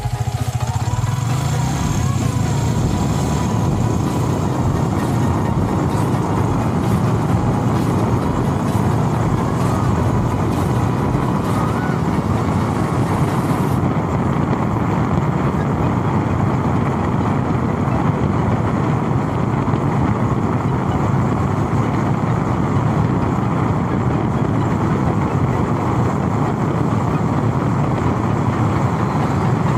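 Steady rush of wind and road noise over the low hum of a moving vehicle, heard from on board as it travels along the road. The upper hiss thins out about halfway through.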